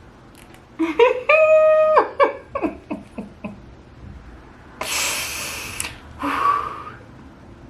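A woman's wordless vocal sounds: a drawn-out hum or whine with one note held level for under a second, then a few shorter sounds. Near five seconds in comes a sharp hiss lasting about a second, followed by a short breathy sound.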